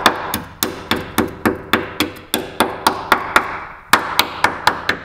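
Hammer blows on ringing sheet steel, about four a second in a steady rhythm with a short break near the end.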